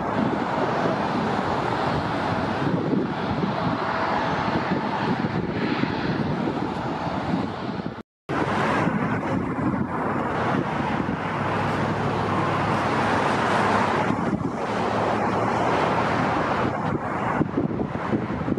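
Steady roar of a jet airliner on final approach, mixed with road traffic. The sound cuts out abruptly for a split second about eight seconds in, then the roar resumes.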